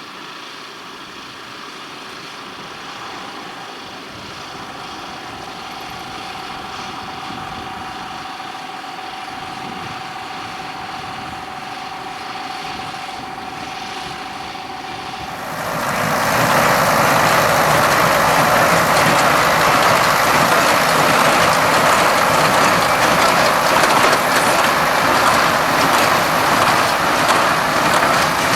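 Ford 7700 tractor running while it pulls a Claas conventional square baler at work. For about the first half there is a steady whine that slowly grows louder. About halfway through, the sound jumps abruptly to a much louder, noisier machinery sound that holds steady.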